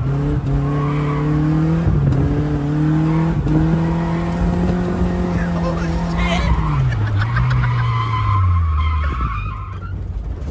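Nissan 240SX drift car with its engine held at steady high revs, stepping up slightly a couple of times. About two-thirds of the way through the revs fall away in two drops, while a high tire squeal runs on until near the end.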